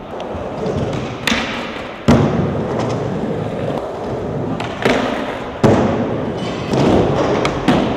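Skateboard wheels rolling on smooth park ramps, with about five sharp cracks and thuds as the board pops and lands.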